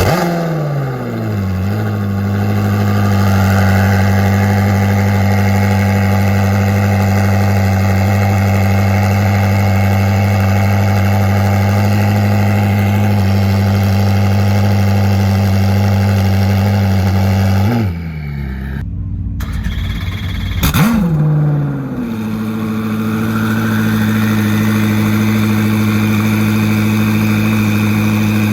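Koenigsegg twin-turbo V8 cold starting: the engine fires with a high flare that falls in pitch within about a second and a half and settles into a steady, high cold idle. After a break about 18 seconds in, a twin-turbo V8 fires again with a short flare and settles back into a steady idle.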